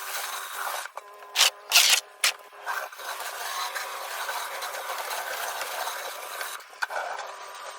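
Pressure-washer water spray hissing on sandstone paving, with a faint steady hum under it. Three loud, sharp blasts of spray come about one and a half to two seconds in.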